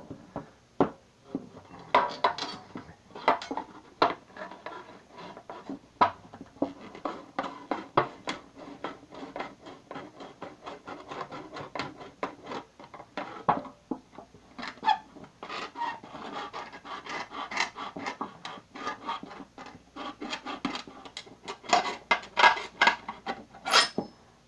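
Knife blade sawing and scraping through the thin sheet metal of a cookie tin lid: an irregular run of rasping scrapes and sharp clicks, in denser flurries near the start, in the middle and near the end.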